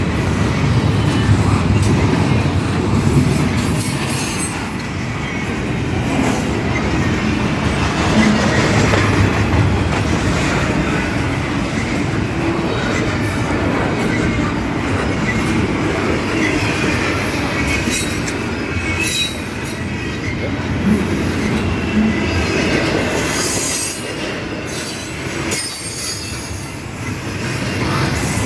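Intermodal container train rolling past at close range: the steady rumble and clatter of the freight cars' wheels on the rails.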